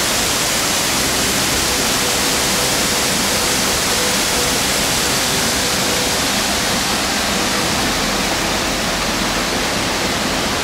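Waterfall on a mountain stream, close by: a loud, steady rush of falling water with no let-up.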